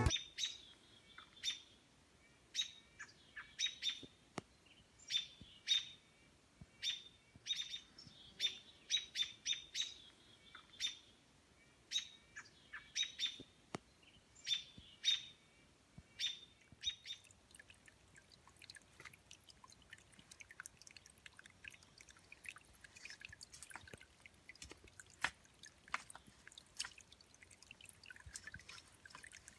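Songbirds chirping: short, sharp calls, about one or two a second, through the first half. After that the calls thin out and a faint, dense trickle of water takes over.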